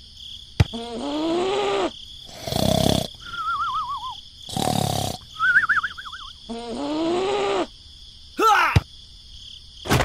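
A string of comic sound effects: a sharp click, then two creature-like groans that rise and fall, two short bursts of hiss, and two wobbling whistle tones between them.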